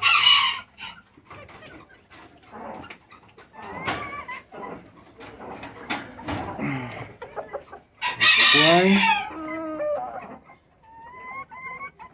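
Bantam chickens clucking, with a loud call at the very start. Around eight seconds in, a rooster crows loudly for about a second and a half, and faint high peeps follow near the end.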